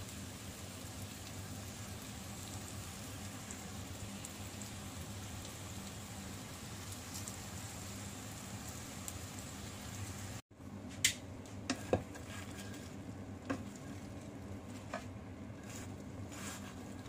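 Breaded pork chops sizzling steadily in shallow oil in a non-stick frying pan. After a short cut about ten seconds in, the sizzling goes on, with several sharp clicks of metal tongs against the pan as the chops are picked up.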